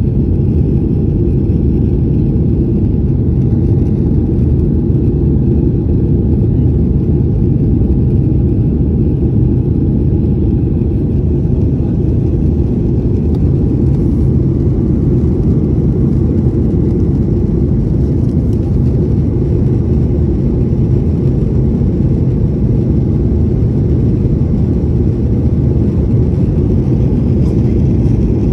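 Steady, deep cabin noise of a Boeing 737 jet airliner climbing after takeoff, heard from a window seat: engine and airflow noise, even throughout.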